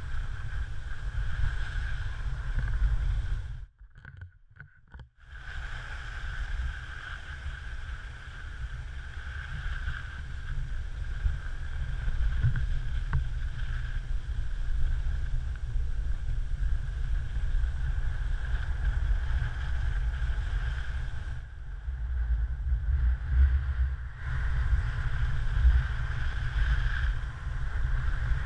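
Wind rumbling on a GoPro Hero3's microphone together with skis hissing and scraping over the snow on a descent. The sound drops out almost completely for about a second and a half around four seconds in.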